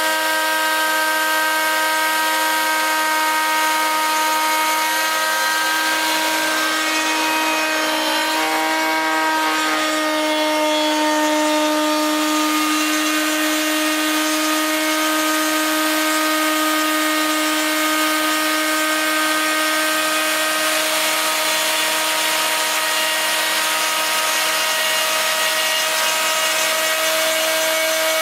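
Router spindle of a homemade CNC milling machine running steadily while its bit mills a groove in a wooden board: a constant high motor whine over the rasping noise of the cut. Its pitch wavers briefly about a third of the way in, then holds steady.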